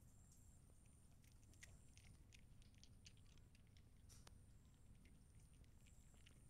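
Faint, irregular crunching of a cat chewing dry kibble taken from a hand, heard as scattered small clicks.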